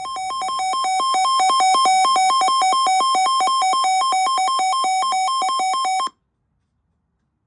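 Emergency Alert System attention signal announcing a tornado warning: two electronic tones alternating rapidly in a loud warble, cutting off abruptly about six seconds in.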